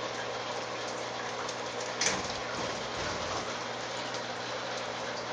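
Steady splashing and trickling of running water in an indoor fish pond, with a low steady hum under it and one short louder sound about two seconds in.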